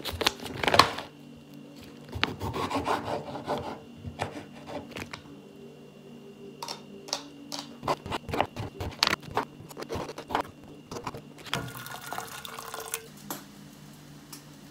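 Plastic food packaging crinkling and rubbing as it is peeled open and handled on a wooden cutting board, with scattered clicks and knocks. A steady low hum runs underneath.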